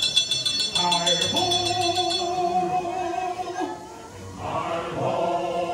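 Show soundtrack of the animated dwarfs singing in chorus with long held notes, over fast tinkling chimes for about the first two seconds.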